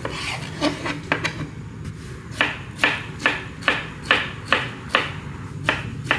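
Kitchen knife slicing a peeled tomato on a cutting board, the blade knocking the board with each cut. The knocks are scattered at first, then settle into a steady run of about two to three a second from about two seconds in.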